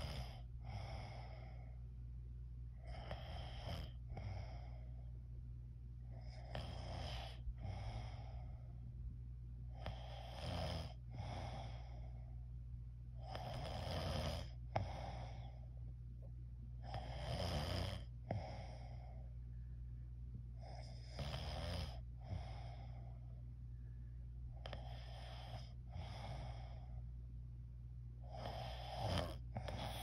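A sleeping person snoring with the mouth open, one snoring breath about every three and a half seconds, each in two rough parts less than a second apart. A steady low hum runs underneath.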